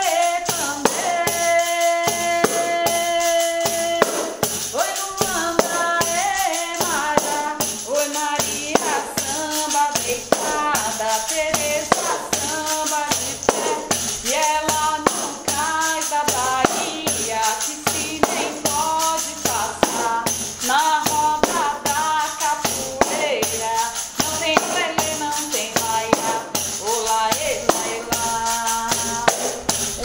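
Capoeira angola pandeiro with an animal-skin head and metal jingles, hand-played in a steady rhythm and shaken to bring out the jingles' chuá. A woman sings a melodic line over it, holding one long note about a second in.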